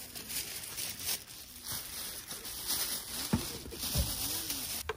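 Rustling and crinkling of a carry bag and food packaging as groceries are unpacked onto a wooden camp table, with two knocks a little over three and four seconds in as items are set down.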